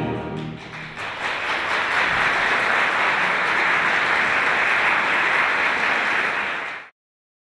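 The last chord of the orchestral ballet music dies away, then audience applause swells about a second in and holds steady until it cuts off abruptly near the end.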